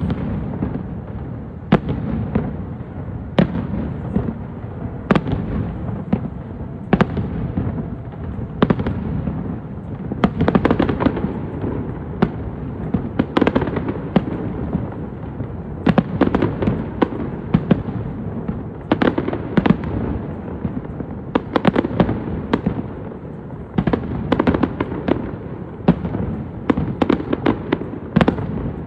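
Fireworks display: sharp bangs of bursting shells over a continuous rumble, spaced a second or two apart at first, then coming in thick clusters of rapid cracks several times.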